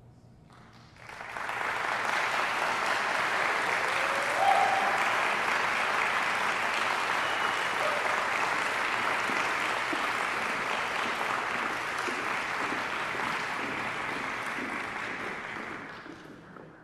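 Audience applauding, starting about a second in once the last note has died away, holding steady, then fading out near the end.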